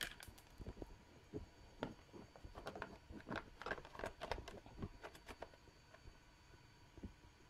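Yamaha NMAX plastic radiator cover being handled and fitted by hand over the radiator: a scatter of light plastic clicks and knocks, thickest in the first few seconds.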